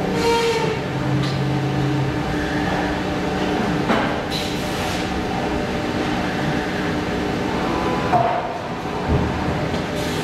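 Factory machinery humming steadily, with a few brief knocks and rustles of parts being handled about four and eight seconds in.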